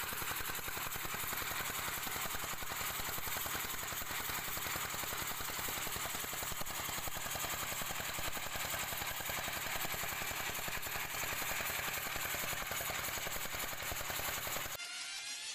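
Diesel engine of a sand-suction pump rig running steadily with a rapid, even beat as it drives the centrifugal pump. It cuts off abruptly near the end.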